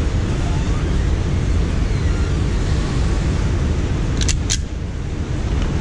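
Steady low rumble, with two sharp clicks about a fifth of a second apart about four seconds in as a pistol is handled.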